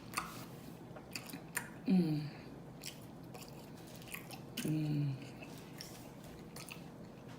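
A person chewing pizza close to the microphone, with scattered wet mouth clicks. Two brief hummed vocal sounds come about two and five seconds in.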